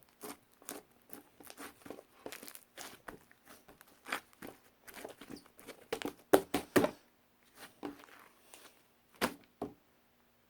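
Dense run of crinkling and clicking handling noises, like crinkly material being worked by hand, loudest a little after six seconds in. After about seven seconds only a few scattered clicks remain.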